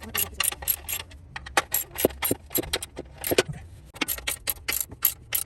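Sharp metallic clicking, several clicks a second in an uneven run, from hand tools or metal parts being handled.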